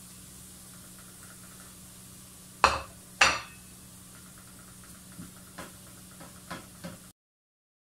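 Cooking in a stainless steel electric skillet: two loud clanks of kitchenware a little over half a second apart, then a few lighter knocks of a spatula stirring against the pan, over a faint sizzle of ginger and garlic sautéing in oil. The sound cuts off abruptly near the end.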